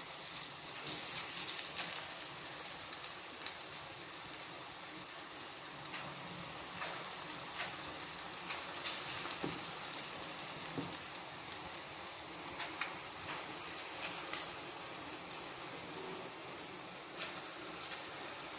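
Moong dal fritter batter deep-frying in hot oil: a steady sizzling hiss with scattered pops and crackles.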